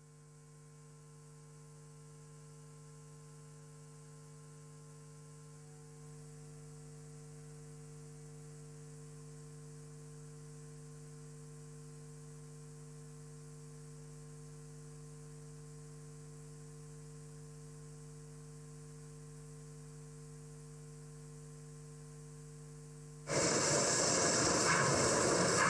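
Steady electrical mains hum with a few steady low tones. About 23 seconds in, a loud rushing, noisy sound cuts in suddenly.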